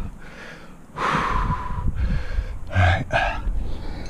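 A rock climber's hard breathing under effort: a long forceful exhale about a second in, then two quick gasping breaths near the end, with no words.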